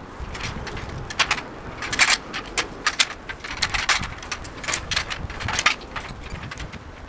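Branches and twigs cracking and snapping in an irregular run of sharp crackles, about two a second, from about a second in until near the end.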